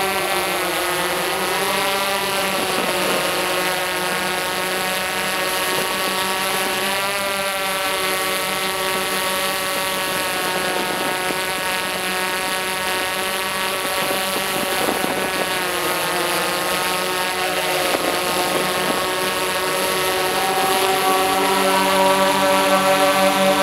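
Tarot X8 coaxial octocopter flying, its eight motors spinning DJI 1552 propellers in a steady, many-toned drone whose pitch wavers up and down as the motors change speed. It grows louder near the end.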